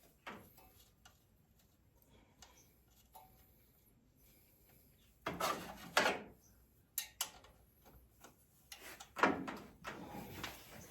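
Metal tools scraping and clunking in an engine bay as a pry bar is worked to tension an accessory drive belt, with scattered small clicks and three louder rasping scrapes about five, seven and nine seconds in.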